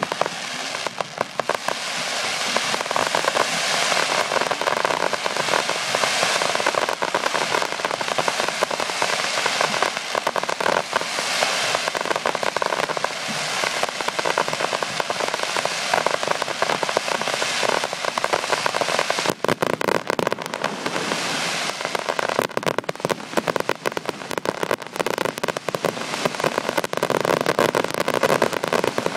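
Fireworks display: continuous dense crackling and popping of many bursts. Sharp bangs come thicker about two-thirds of the way through.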